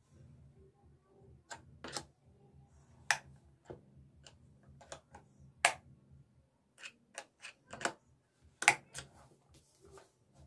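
Irregular sharp plastic clicks and taps, about a dozen, as a screwdriver-type line tester is pushed into the pin holes of a modular switch-and-socket board and the board is handled. The loudest click comes near the end.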